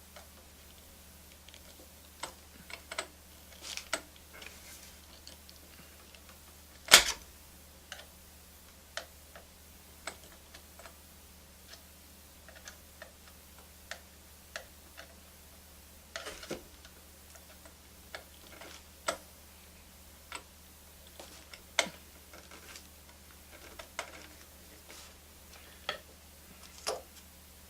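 Scattered small clicks and taps of screws, washers and a screwdriver being worked against a phonograph turntable's motor mounting, with one sharp knock about seven seconds in.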